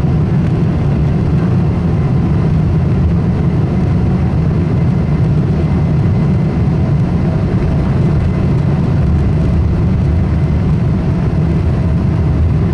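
Cabin noise of a Boeing 777-200ER taxiing, heard from a seat by the wing: a steady low rumble of the jet engines at low power. A faint steady hum joins partway through.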